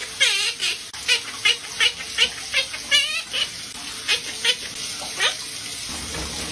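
A parrot chirping and whistling: a quick string of short high notes, about two to three a second, with a warbling trill near the start and another about three seconds in.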